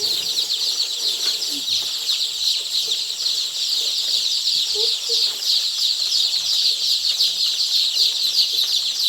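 A large crowd of day-old layer chicks peeping all at once: a dense, unbroken chorus of high, rapid cheeps that holds steady.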